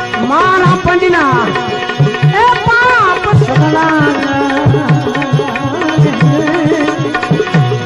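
Instrumental interlude of a Gujarati bhajan. Tabla keeps a steady rhythm under a melody that slides and bends between notes, over a steady held drone.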